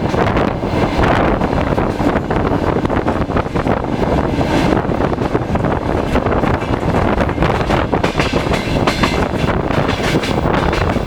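2TE116 twin-section diesel locomotive running as it approaches with a passenger train, under steady wind noise on the microphone.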